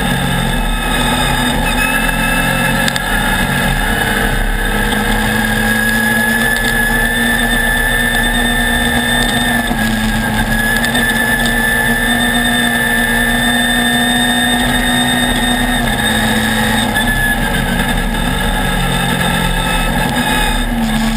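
Off-road race buggy's engine running at steady high revs under way on a dirt road, its pitch shifting slightly a few times, over a constant rush of noise.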